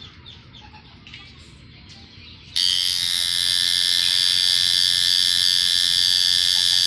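Coil tattoo machine buzzing steadily at a high pitch as the needle works the skin, starting up about two and a half seconds in after a short quiet pause.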